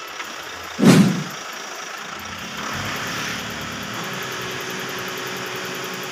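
Diesel engine of an Isuzu Forward boom truck running steadily, driving the crane's hydraulics during a boom swing, with a steady hum joining about four seconds in. A loud thump comes about a second in.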